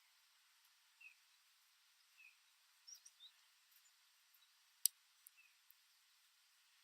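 Faint, scattered short bird chirps, a few notes a couple of seconds apart, over a quiet backdrop. A sharp click about five seconds in is the loudest sound, followed by two fainter ticks.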